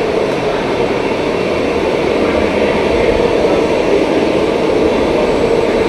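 Steady, even roar of a waste incinerator's forced-draft Lamborghini gas burners firing, their fans and flames running together while the chamber burns its load.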